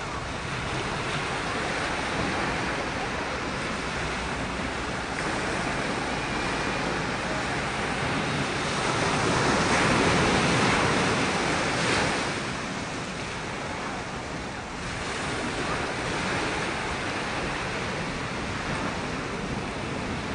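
Small ocean surf washing in and breaking in shallow water, a steady rush that swells louder about halfway through as a wave breaks.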